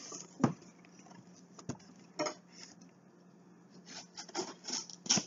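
A cardboard subscription box being handled and opened: a few sharp knocks with rubbing and scraping between them, most of it in a cluster near the end.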